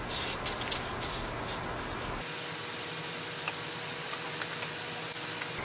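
Small handling noises of sculpture pieces being positioned on the floor: a flurry of light clicks and rustles at first, then a few faint ticks and one sharper click near the end, over a steady hiss.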